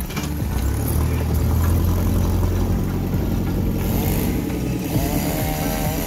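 JCB 3CX backhoe loader's diesel engine running steadily as the machine works its front loader bucket into brush and undergrowth.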